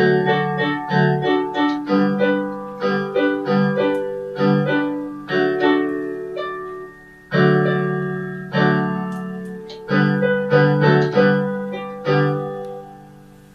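Solo piano music: a slow run of struck chords, each left to ring and die away, ending on a held chord that fades out near the end.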